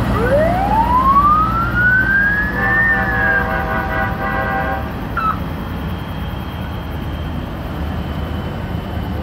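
An emergency vehicle's siren winds up in one long rising tone over about three seconds, then eases off slightly. About two and a half seconds in, a horn joins it and blasts for about two seconds, over the steady low rumble of vehicle engines.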